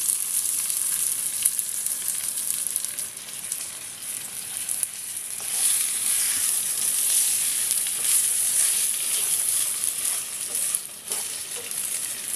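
Freshly washed, drained rice sizzling steadily in hot ghee and oil in a nonstick pan, stirred and turned with a wooden spatula: the rice is being fried before the water goes in.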